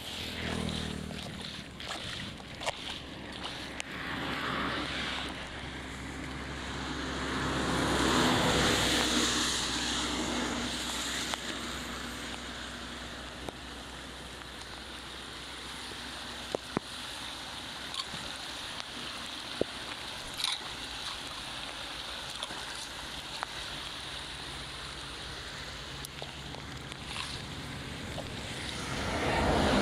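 Floodwater rushing and sloshing in a steady noise. It swells louder about eight seconds in and again at the end, with a few scattered small clicks.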